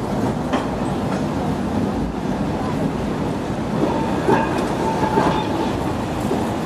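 Vintage tram rolling past on street track, its wheels clacking over the rail joints a few times, with a short thin squeal from the wheels about four to five seconds in.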